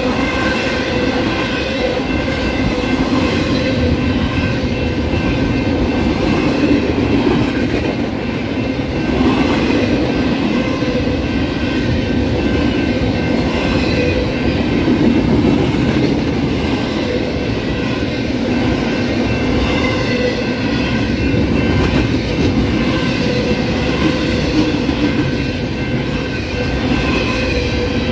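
BNSF intermodal freight cars rolling past at close range: a continuous steady rumble of steel wheels on rail, with several steady high tones ringing above it.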